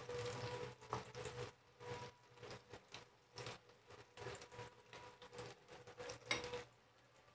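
Flour-coated whole eggplants shallow-frying in hot oil in a pan, sizzling with irregular crackles and pops, over a faint steady hum. The frying dies down near the end.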